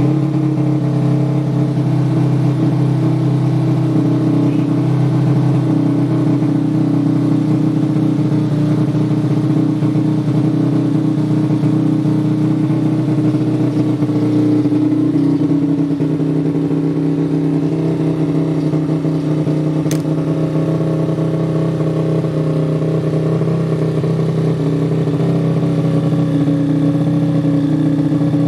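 Modified 130cc underbone motorcycle engine running steadily at a held, slightly raised idle while it is being tuned, its pitch shifting only a little about halfway through.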